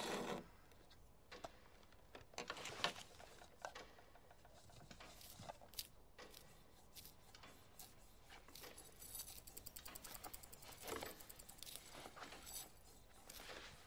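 Faint small clicks, taps and rustles of hands fiddling with small objects such as pens, with a quick run of fine ticking about nine seconds in.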